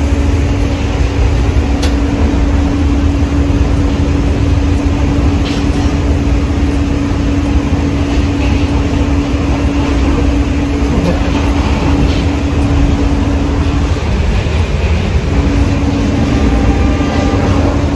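Passenger train in motion heard from inside the carriage: a steady low rumble of the running train with a constant hum over it, which drops out for about a second some three quarters of the way in.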